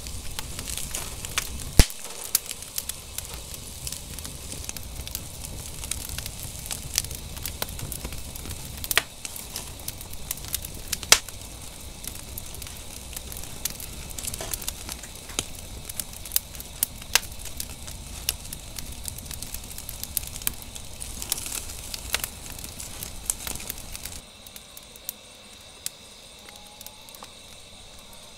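Wood fire in a fire-pit grill crackling with many sharp pops under prawns on the grate. About four seconds before the end the crackle falls away and a steady high trill of insects remains.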